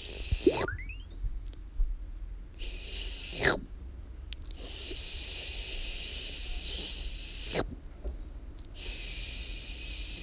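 Sound effects made with the mouth: long hissing 'shhh' sounds that start and stop sharply, a rising whistling swoop about half a second in, and a few short falling swoops.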